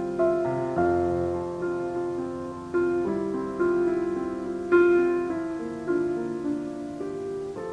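Slow piano music, chords struck about once a second and left to ring out.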